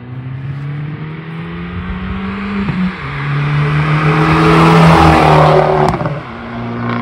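2012 Fiat 500 Abarth with a stage 1 remap and stainless-steel exhaust silencer accelerating past. Its 1.4 turbo four-cylinder's note rises under throttle and dips briefly at a gear change about three seconds in. The car is loudest as it goes by about five seconds in, then the engine note drops as it pulls away.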